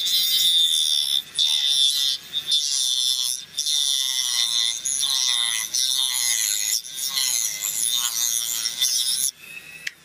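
Dremel rotary tool with a cutoff disc whining at high speed as it gnaws into a polycarbonate V wheel in short bites. The pitch wavers and dips briefly as the disc bites and eases off, and the tool stops near the end.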